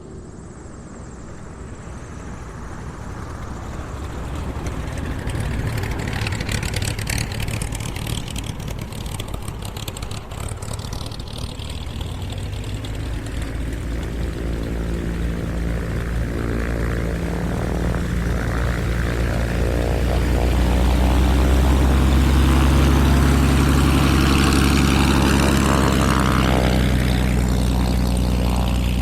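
A car in motion: engine and road noise that grows steadily louder, with a steady low engine hum coming in about halfway and loudest near the end.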